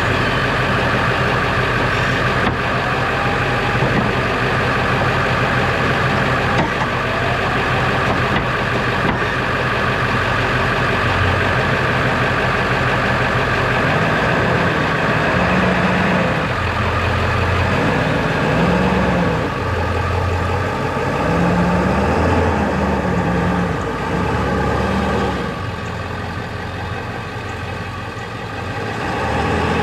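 Ford F-450 pickup truck engine running steadily; about halfway through its low note starts shifting and gliding up and down.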